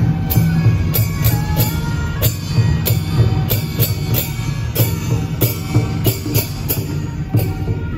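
Loud electronic dance music with a driving drum beat and heavy bass.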